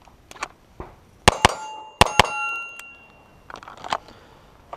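Four 9mm shots from a Wilson Combat CQB 1911 pistol, fired in two quick pairs within about a second, each pair followed by the ring of hit steel plates. Fainter clicks and rustles come before and after the string.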